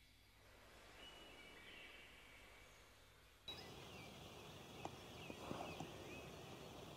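Faint, distant birdsong over quiet countryside: scattered short chirps and warbles. About halfway through, the background hiss steps up suddenly, and the birds become a little busier, with a few faint clicks.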